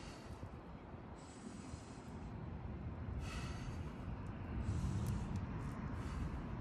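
A man breathing hard through his nose while straining to hold a deep horse-stance squat, with one sharp exhale about halfway through. A low rumble of passing traffic grows louder in the second half.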